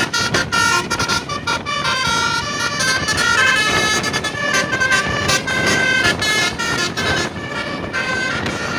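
Tour bus's basuri horn, a set of tuned multi-note horns, playing a melody of held notes that change pitch every fraction of a second, over a noisy background.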